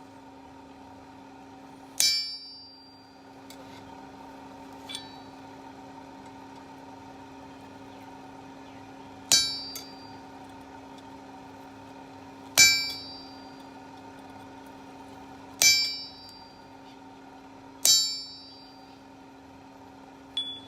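Five single hammer blows on steel at the anvil, spaced several seconds apart, each with a bright metallic ring that dies away quickly, over a steady drone.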